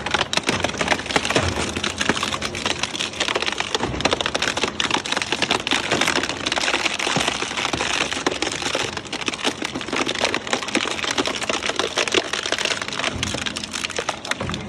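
A shredding or crushing machine breaking up material, a dense continuous crackle of many small cracks and snaps.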